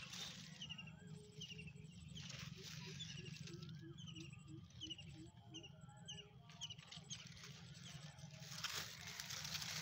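Birds calling faintly: short repeated chirps, rising whistled notes and a quick run of low notes a few seconds in, over a low steady hum. Leaves and vines rustle twice as they are pushed aside by hand.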